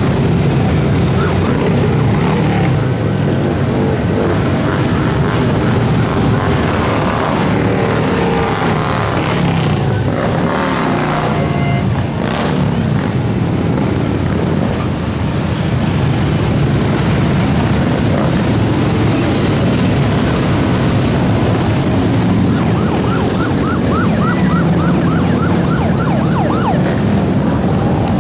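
Touring motorcycles riding past one after another, their engines revving up and down as each goes by. Late on, a quick run of short rising chirps repeats about three times a second for a few seconds.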